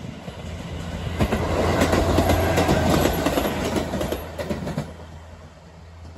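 JR Hokkaido KiHa 143 series diesel railcar passing by: a steady low engine hum under the clatter of wheels over rail joints. The clatter swells about a second in and fades away after about four seconds.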